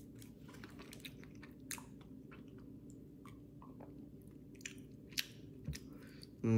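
Close-up chewing of a jelly donut: soft, wet mouth clicks and smacks scattered irregularly, with a sip of oat milk from a glass about four seconds in.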